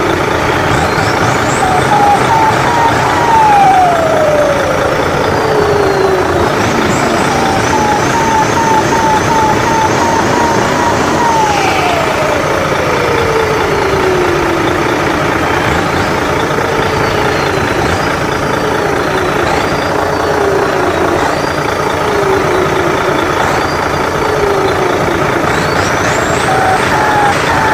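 Big RC truck's electronic sound system playing a diesel truck engine revving, with a turbo whistle that climbs, holds high and then falls away twice over a loud steady rumble. Later comes a quick run of about six short revs, each with a brief falling whistle, and the whistle climbs again near the end.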